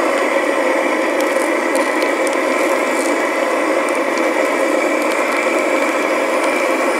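Melting furnace running with a steady rushing noise. Over it come light, scattered crackles from a degassing tablet still bubbling in the molten aluminium under a bell plunger.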